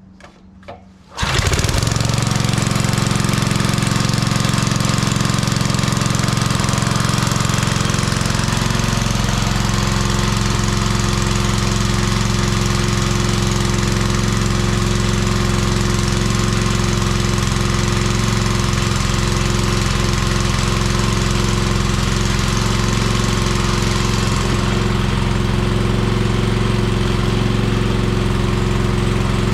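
Old 5 hp Briggs & Stratton engine on a wood splitter starting about a second in and then running steadily at an even speed, with its air cleaner off.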